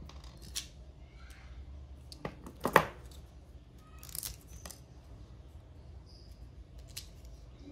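Small clicks and taps from handling a steel wristwatch, a small screwdriver and a blister-packed button-cell battery on a desk. A sharper clack comes a little under three seconds in and a brief scratchy rustle about four seconds in.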